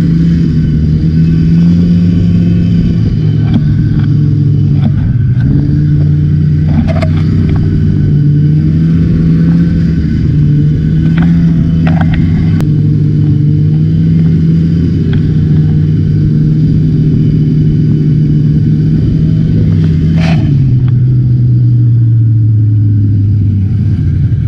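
Two-stroke snowmobile engine heard from on board, running steadily at speed across snow, with a few knocks along the way. About 20 seconds in, its pitch drops as the throttle is eased.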